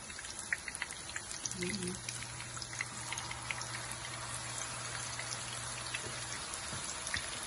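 Minced-meat seekh kebabs frying in hot oil in a shallow pan: a steady sizzling hiss with scattered crackles and pops.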